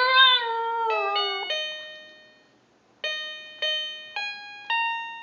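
A dog howling, one long wavering howl that slides down in pitch and dies away about a second and a half in, over slow single piano notes. After a short pause the slow piano notes go on alone.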